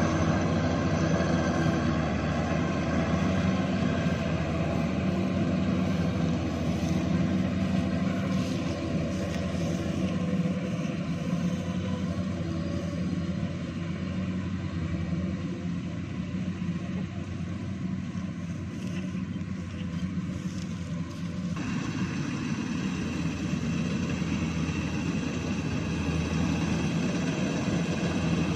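Kubota rice combine harvester running steadily under load, a continuous diesel engine drone with a strong low hum. About three-quarters of the way through, the sound turns abruptly brighter and slightly louder.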